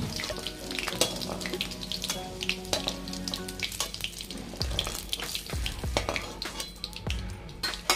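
Hot oil sizzling and crackling in a kadai as fried green and dried red chillies are lifted out with a slotted spoon, with a few dull knocks in the second half.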